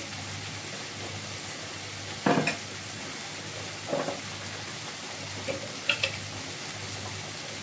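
Onion and tomato masala frying in a kadai with a steady sizzle, while a spoon stirs and knocks against the pan a few times.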